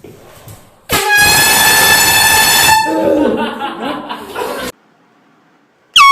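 Handheld air horn blasting one loud, steady blaring tone for about two seconds, followed by a startled yell. Near the end another air horn blast starts, higher in pitch.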